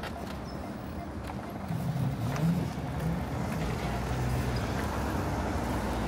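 City street traffic: a motor vehicle's low engine hum swells up about two seconds in, with its pitch wavering, and then settles into a steady low rumble.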